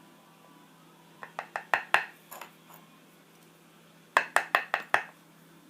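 Small metal lock parts clinking against a hard surface while the lock is taken apart: a quick run of light clicks about a second in, then five sharp clinks in quick succession near the end.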